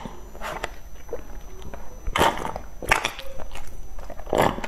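Close-miked drinking through a straw from a drink carton: a few short sips and swallows, spaced a second or so apart.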